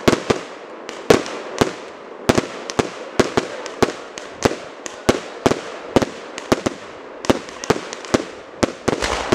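Aerial fireworks going off in a rapid, uneven series of sharp bangs, about two to three a second, with a steady hiss between the shots.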